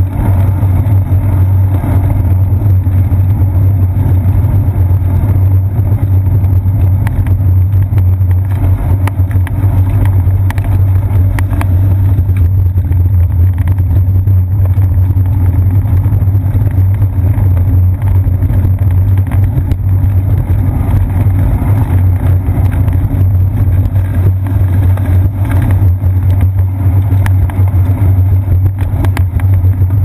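Bicycle riding along an asphalt path, heard through a seat-post-mounted GoPro Hero 2 housing: a loud, steady low rumble of tyre and road vibration carried up the frame, with a few faint clicks.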